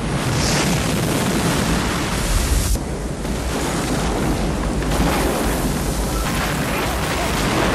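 Film sound effects of a giant tsunami wave: a loud, continuous rush of crashing water and wind with a heavy low rumble. The mix shifts abruptly about a third of the way in and again near the middle.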